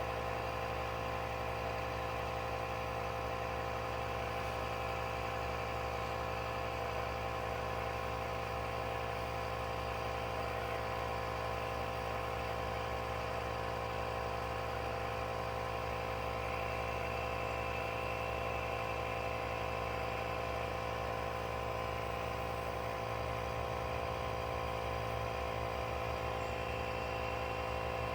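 Jeep engine idling steadily, an even mechanical hum.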